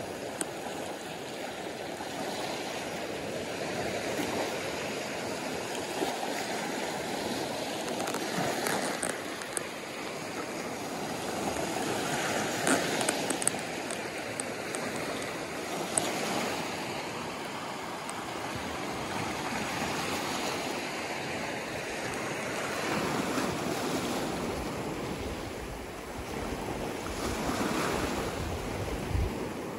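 Small waves washing up a black pebble beach and drawing back, swelling and falling in repeated surges. A few sharp clicks come partway through.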